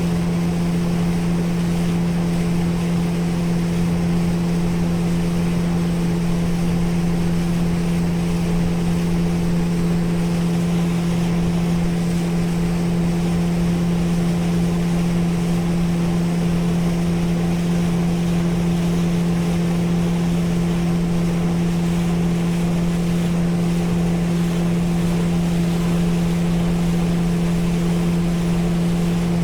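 Motorboat engine running at a steady cruising speed, a constant hum with several even tones, over the rush of water past the hull.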